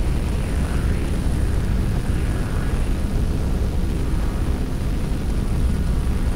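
Steady low rumble of large engines, like a big aircraft running nearby, with no clear rise or fall.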